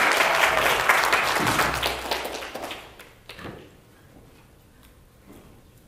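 Congregation applauding after a sung number, the clapping dying away about three seconds in; a few faint knocks follow in the quiet.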